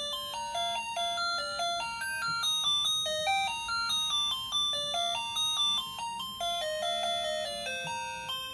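Electronic sound-chip melody from a battery-powered Gemmy animated Christmas figure, playing a tune in bright beeping notes, each struck and fading, about two or three a second. A faint steady low hum from the small motor that drives the knitting arms runs underneath.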